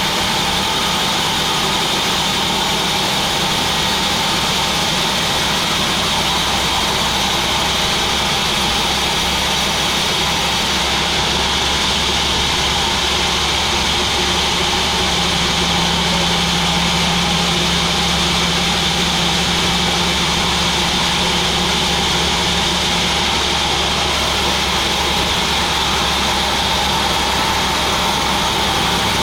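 Sawmill machinery running steadily: a constant mechanical drone with a steady high whine over it, with no breaks or changes in level.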